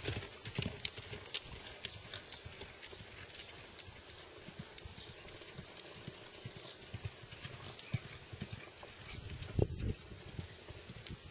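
Hoofbeats of a ridden horse cantering on sand, a running series of soft, irregular thuds, with one louder thump near the end.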